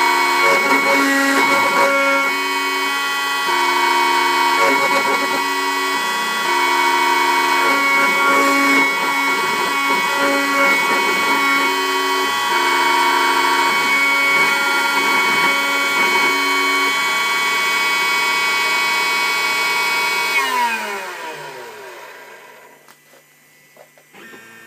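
Bravo Prodegy 3030 CNC router's spindle running with a steady high whine while the bit cuts pine, with lower motor tones that change pitch in steps as the axes move. About 20 seconds in the spindle is switched off and its whine falls in pitch as it spins down.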